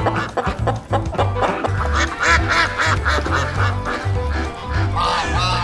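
Background music with a steady bass beat, with rapid repeated quacking over it.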